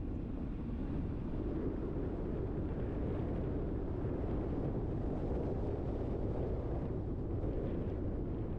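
Steady low rumble of a car driving along: tyre and engine noise from the moving vehicle, even throughout.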